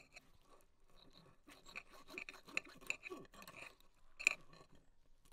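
A utensil scraping against a dish in a run of short, irregular strokes, with one sharper, louder scrape about four seconds in.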